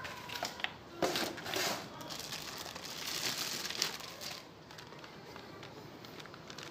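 Plastic bag crinkling and rustling as a keyboard is pulled out of it, with a few sharp crackles, then dying down about four and a half seconds in.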